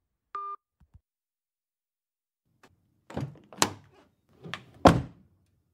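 A short electronic beep as the phone call is hung up, then a door being opened and shut: four thunks over about two seconds, the last one the loudest.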